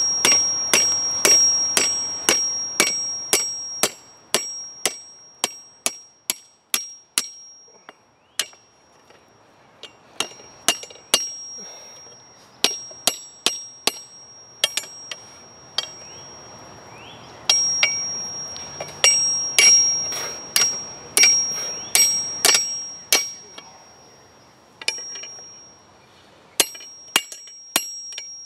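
Hand hammer striking a bar over the horn of an anvil, about two blows a second in runs with short pauses between them. Each blow sets the anvil ringing with a clear, high tone.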